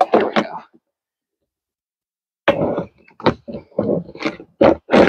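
Hard plastic knocking and clattering as a compost tumbler's snap-on door is worked onto the drum by hand. The sounds come in two spells, with about a second and a half of silence between them.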